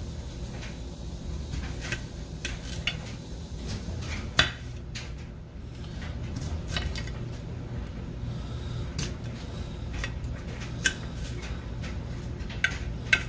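A knife and potato pieces clicking and knocking against a ceramic platter as potatoes are trimmed and set down. The knocks are scattered and irregular, the sharpest about four seconds in, over a steady low hum.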